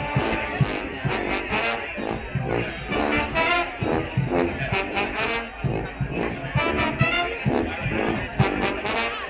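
Street brass band playing: trombones, trumpets and saxophones over a steady beat.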